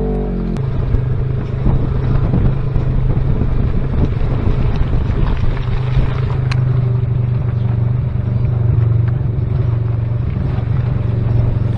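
Side-by-side UTV engine running steadily under load on a rough dirt trail, heard from inside the open cab, with a rough, rattling drone and road noise.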